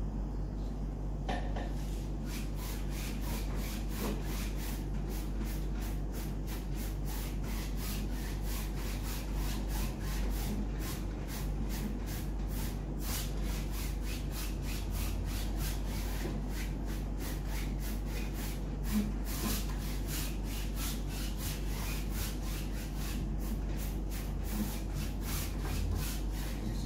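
Paintbrush scrubbing back and forth on a large stretched canvas, a regular rubbing of about two to three strokes a second, over a steady low hum.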